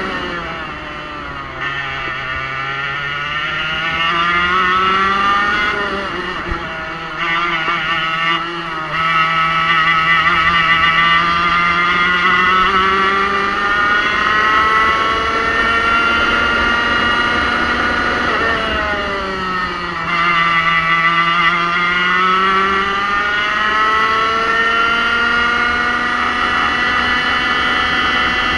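Racing kart engine heard from on board, pulling hard with revs that rise and fall. The engine note drops sharply twice as the kart slows for corners, and climbs back up each time as it accelerates out onto the straights.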